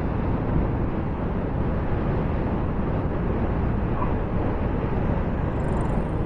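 Steady wind and road noise from a Honda PCX 160 scooter riding at speed on a highway, with no clear engine note standing out.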